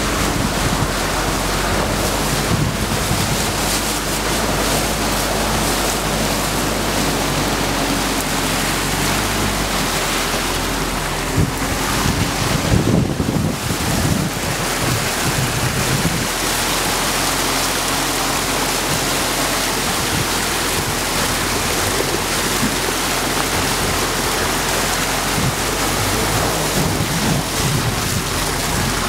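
Swamp buggy engine running steadily while driving through flooded ground, with heavy wind noise on the microphone. About twelve seconds in, a rough rush of water splashing against the hull covers the engine hum for a few seconds before it returns.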